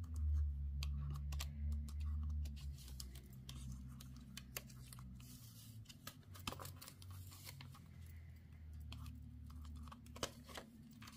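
Post-it tape and paper masks being peeled off cardstock and handled, giving scattered small clicks and rustles over a low steady hum.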